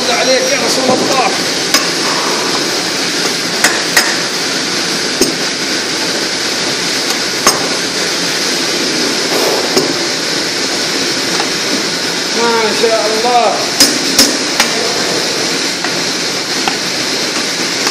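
A long metal ladle stirring and fluffing cooked basmati rice in a large aluminium pot, clanking sharply against the pot every few seconds, with a quick run of knocks about two-thirds through. A steady rushing noise sits underneath.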